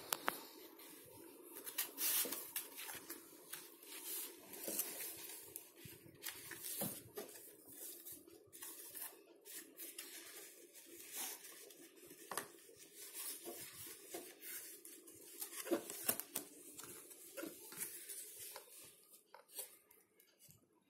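Paper and cardboard of a handmade card gift box being handled: irregular rustles, taps and flaps as its card pages are opened and turned, over a faint steady hum.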